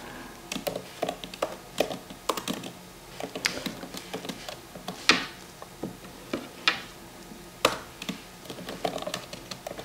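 Typing on a computer keyboard: uneven keystroke clicks, a few a second, with short pauses between bursts.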